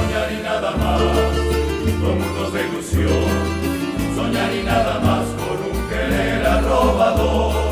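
Bolero played by a rondalla, a plucked-string ensemble of guitars and related instruments, with choral voices over a bass line that changes note about once a second.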